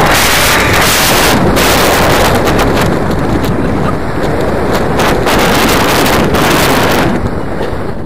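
Loud wind rushing and buffeting over the camera microphone of a tandem paraglider in a steep banked turn. The rush eases about seven seconds in as the wing levels out.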